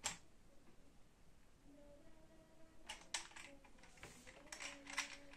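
Plastic 3x3 puzzle cube clicking as it is handled and its layers are turned: a few short, scattered clicks, more of them in the last couple of seconds.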